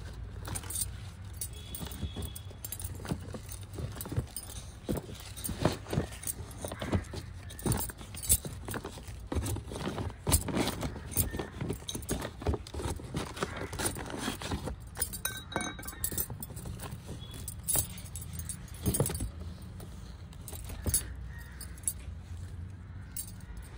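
Small hand tool scraping and digging in soil in a fabric grow bag, loosening the earth around the plants' roots, with irregular clinks and rattles like bangles jangling on the working wrist.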